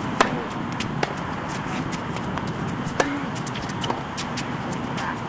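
Tennis ball struck by rackets in a rally: a sharp serve hit just after the start, a fainter return from across the court about a second later, and another sharp hit about three seconds in, over a steady outdoor hiss.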